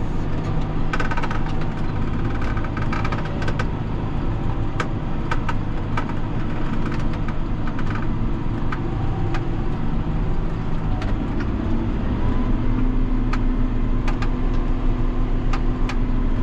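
John Deere 6930 tractor's six-cylinder diesel engine running steadily under load, heard from inside the cab, with scattered sharp clicks and rattles. About twelve seconds in, the engine note rises a little and a steady hum comes in.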